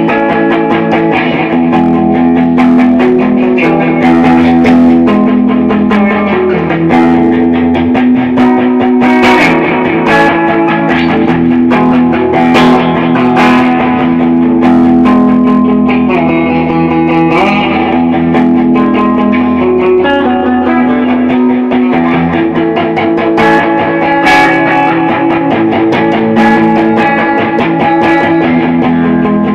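Electric guitar playing a blues in a surfy, shoegaze style: plucked notes ringing out over held low notes, loud and steady throughout.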